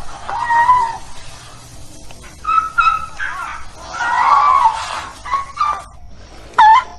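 Kumki elephant, a trained captive Asian elephant, calling: a string of short, high-pitched calls and squeaks with gaps between them. The last call, near the end, is the loudest.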